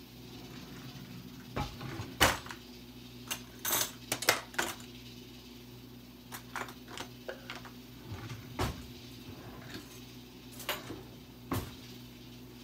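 Metal kitchen utensils clinking and clattering as someone handles them, with a quick run of sharp clinks about two seconds in, then scattered lighter clicks.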